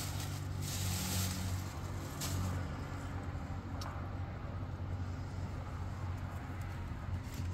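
A steady low hum throughout. Over it, a plastic bag rustles about a second in as tea glasses are taken out of it, and a couple of light clicks follow as the glasses are set down.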